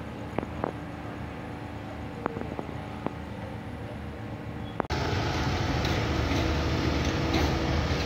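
Steady low background hum with a few short, sharp clinks of plates and cutlery. About five seconds in it cuts suddenly to a louder, steady rumbling noise.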